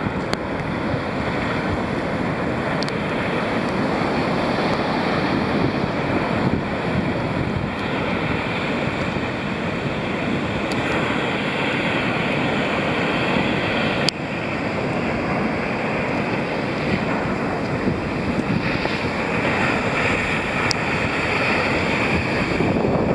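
Breaking ocean surf heard as a steady rush, with wind buffeting the microphone.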